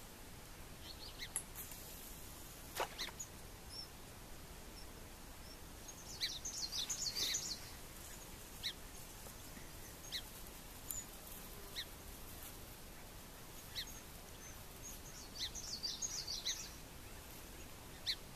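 Small birds chirping around a pond: single high chirps every second or two, with two spells of rapid twittering, one at about six to seven seconds in and one near the end.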